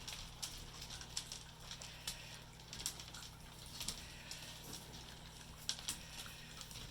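Lagotto Romagnolo puppies snuffling up kibble off the floor: faint, irregular small clicks and taps of claws and kibble.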